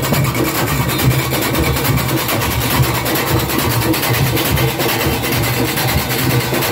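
Junkanoo band rehearsing: goatskin drums and cowbells playing a dense, fast, steady rhythm.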